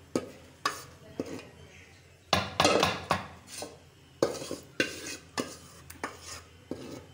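Metal spoon scraping and knocking against steel cookware as chicken masala is spooned out of a pan onto a layer of rice. Sharp clinks come every half second or so, with a longer, louder scrape a little over two seconds in.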